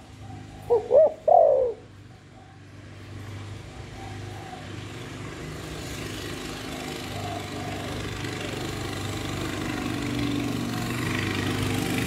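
Spotted dove gives one three-note coo about a second in: two short notes, then a longer note falling in pitch. After it a steady rushing noise with a low hum builds slowly louder.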